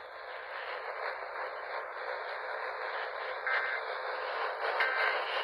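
Steady, thin radio static hiss from a received broadcast, with two short, faint warbling data bursts of the Emergency Alert System's SAME code about three and a half and five seconds in. Bursts this short, about a second apart, are the end-of-message signal that closes an EAS alert.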